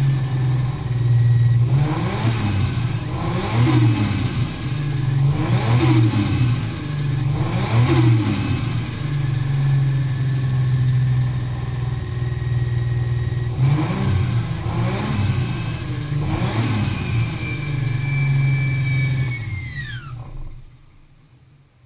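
Single-turbo Toyota 1JZ 2.5-litre straight-six running, blipped up and down in a string of short revs with steadier idle between. About two seconds from the end it shuts off: the engine note and a high whine fall away together.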